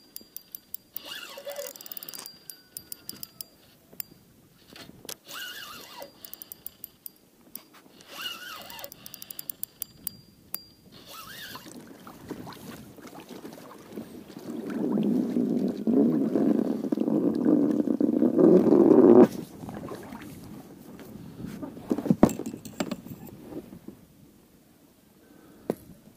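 Spinning reel clicking in short rapid runs while a lure snagged on the bottom is pulled against. This is followed by several seconds of loud rough scraping and rustling, then a few sharp knocks.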